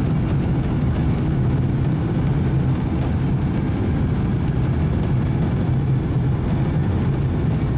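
Boeing 757-200 cabin noise while taxiing: the jet engines running at low taxi power, heard from inside the cabin as a steady low rumble.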